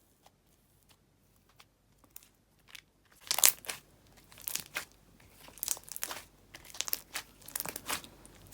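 Fluffy slime being squeezed and pressed by hand: a few faint clicks at first, then from about three seconds in, repeated crackling, crinkling squishes.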